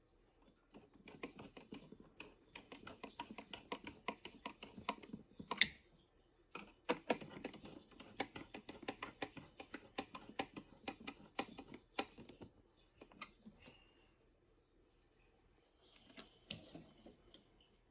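Quick runs of small clicks and taps, several a second. One sharper, louder click comes about five and a half seconds in, and after a lull a few last clicks come near the end.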